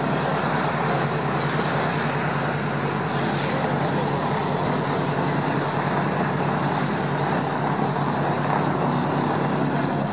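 Douglas DC-3's radial engines running during start-up, a steady, even engine sound with no surges or coughs.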